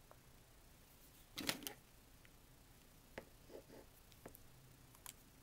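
Plastic Copic alcohol markers being picked up and handled on a cutting mat: a brief cluster of clicks and knocks about one and a half seconds in, then a few lighter single taps.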